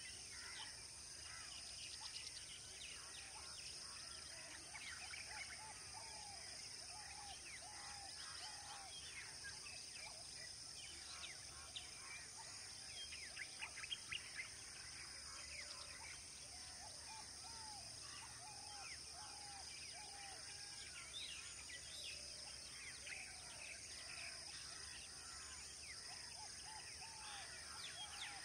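Faint natural ambience of many birds calling: quick high chirps and runs of a short, repeated mid-pitched call, over a steady high insect drone. A few brief louder sounds stand out around the middle.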